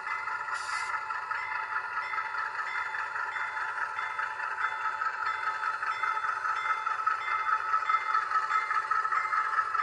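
HO scale model freight train running on the layout track: the diesel model locomotive and its covered hoppers rolling along with a steady mechanical running sound that grows louder as the train comes closer.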